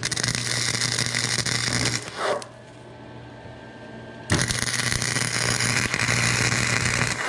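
Wire-feed welder arc crackling and buzzing as a bead is laid on a steel tie rod. The arc stops about two seconds in and strikes again abruptly a couple of seconds later.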